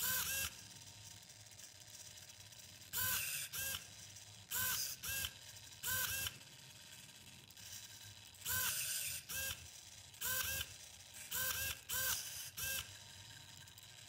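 Motors of a small pen-drawing robot arm whirring in about a dozen short bursts as the arm moves the pen, each burst a fraction of a second long with a whine that bends up and down in pitch.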